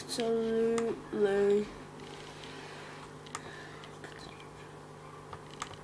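A boy's voice saying one drawn-out word, then a steady low hum with a few faint, scattered clicks.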